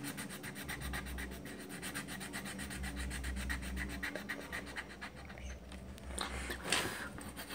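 Colored pencil scratching on paper in quick repeated strokes while a drawing is filled in, with a louder rasp about six to seven seconds in.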